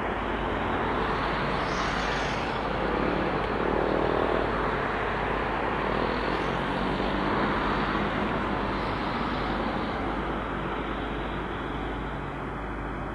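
Heavy diesel engines of the cranes and truck running steadily, with a broad outdoor mechanical din that swells in the middle and eases toward the end.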